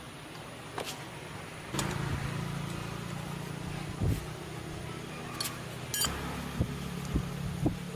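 A motor starts up about two seconds in and runs with a steady hum, with scattered clicks and knocks of handling around it.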